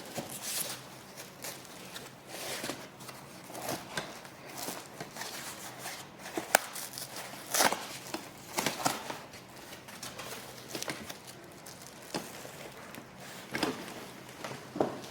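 Cardboard and foam packaging rustling, scraping and knocking as gaming-chair parts are unpacked by hand, in irregular bursts with a sharp knock about six and a half seconds in.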